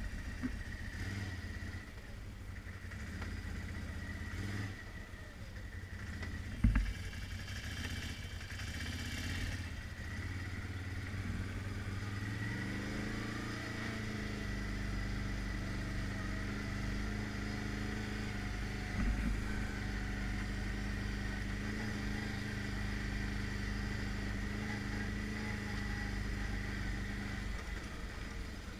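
ATV engine running while the quad rides over dirt trail, with low rumble underneath; its note rises about twelve seconds in and then holds steady. A single sharp knock stands out about a quarter of the way through.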